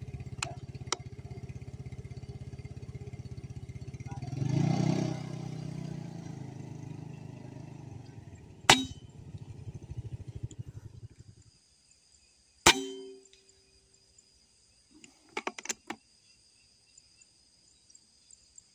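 Two sharp shots from the Unit 88 Billy Jr air rifle, about four seconds apart; the second is the loudest and ends in a short ringing clang. Under the first part, a passing vehicle's engine runs and swells, then fades out. A few quick clicks follow near the end.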